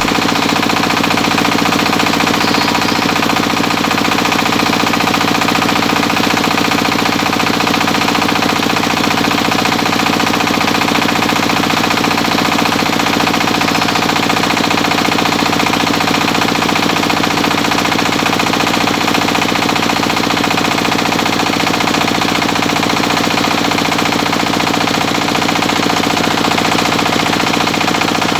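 Single-cylinder horizontal diesel engine running steadily under load, driving a small rice huller by V-belts as paddy is fed through it. The sound is loud and even throughout.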